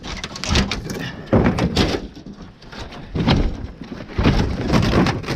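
Pieces of scrap debris being thrown and dropped: a run of four or five heavy thuds and bangs.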